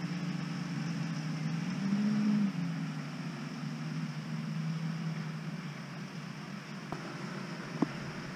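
Tractor diesel engines running in the distance; one revs up briefly about two seconds in, then settles back, and the hum fades after about five and a half seconds. Two sharp clicks come near the end.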